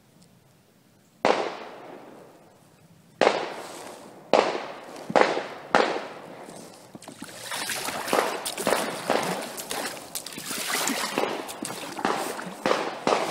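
Five gunshots cracking one after another, each echoing away over the water for a second or more. The last two come close together. From about halfway through, water sloshing and splashing with paddle strokes as the boat is paddled away.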